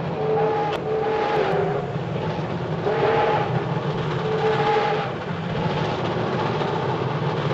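Cartoon steam-train sound effect: a steady low rumble with rhythmic noisy puffs. Short chord-like tones come back about every second and a half.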